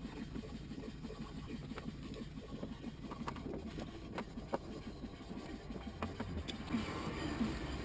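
Light, scattered clicks and taps from a 10mm nut driver fastening the window track inside a car door, over a steady low rumble.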